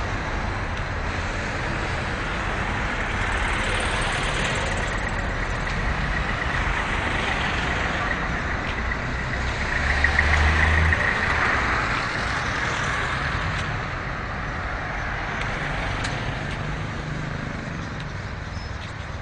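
Steady road traffic, with one vehicle passing close and loud about ten seconds in.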